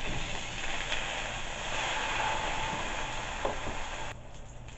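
A loud kitchen fan running with a steady rushing noise and a low hum, over steak frying in a pan. The fan noise cuts off suddenly about four seconds in, leaving the quieter sizzle of the pan.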